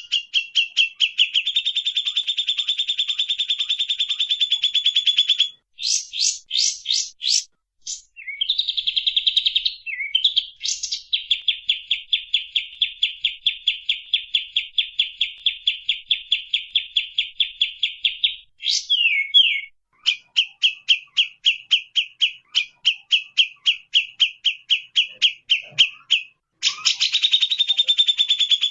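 A kapas tembak songbird singing long, very rapid trills of repeated high notes, each lasting several seconds, broken by short gaps with a few slower, separate notes and a quick swooping note.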